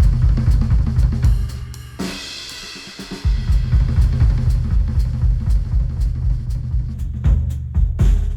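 Music track with a drum kit and heavy bass beat, the low end dropping out for about a second near the middle before the beat returns. It is played back through headphones and picked up by microphones at the earcups.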